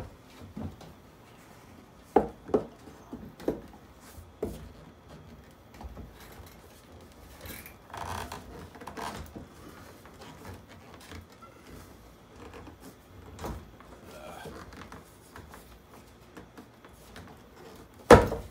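PVC vent pipe and fittings being handled and pushed together: several sharp plastic knocks in the first few seconds, rubbing and scraping as the pipe slides into the fitting, and a louder knock near the end.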